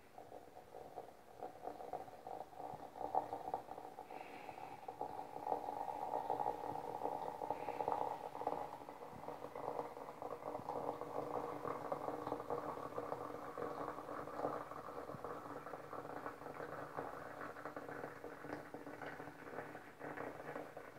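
Water pouring in a steady stream from a kettle into a cast-iron teapot, splashing onto the loose tea leaves inside.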